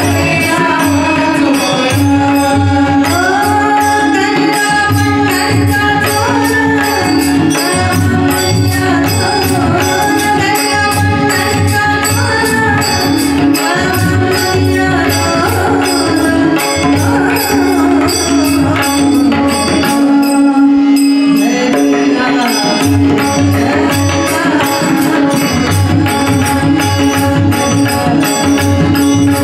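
Live Marathi bhajan (abhang): a woman singing a devotional melody, accompanied by harmonium, tanpura drone, hand drums and small hand cymbals keeping a steady rhythm.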